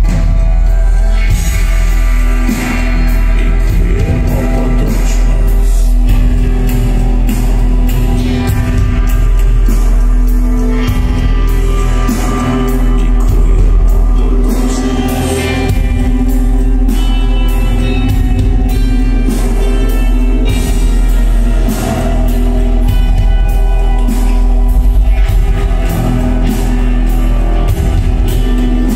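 Live band music at a concert, recorded from the audience: a man singing over drums, keyboards and a heavy, loud bass.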